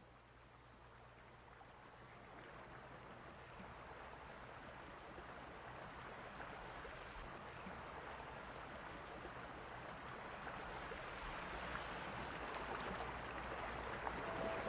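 Running water like a flowing stream, a steady rushing hiss that fades in from silence and grows gradually louder. A single held musical tone comes in just at the end.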